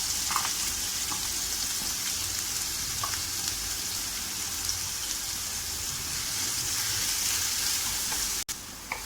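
Chopped onion sizzling in hot oil with cumin seeds in a pan, a steady frying hiss. It breaks off sharply about eight and a half seconds in and carries on quieter.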